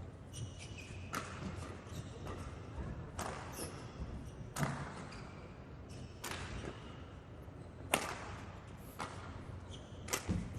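Badminton rally: rackets striking the shuttlecock in sharp smacks about every second and a half, six hits in all, over the background of an indoor sports hall, with short squeaks of court shoes on the floor.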